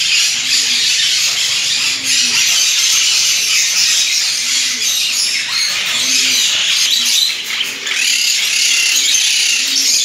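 Many caged small parrots, lovebirds and budgerigars, chattering and chirping all at once in a loud, unbroken din. A short low call repeats about once a second underneath.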